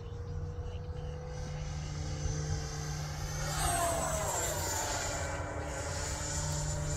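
Electric ducted-fan RC jet flying past: its whine rises, then a stack of tones slides down in pitch about three and a half seconds in as it passes, and a thin high whine carries on afterwards.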